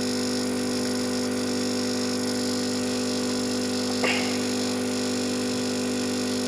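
Hot air rework station running steadily while heating a chip's pins: an even hum with air hiss from the blower. A brief short sound about four seconds in.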